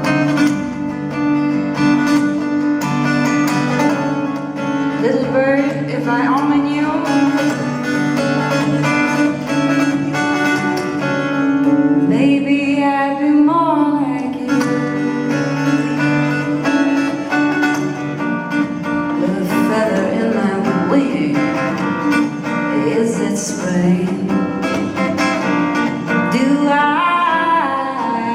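Live acoustic folk music: an acoustic guitar-led band playing an instrumental passage, with gliding melodic lines over a steady held low note.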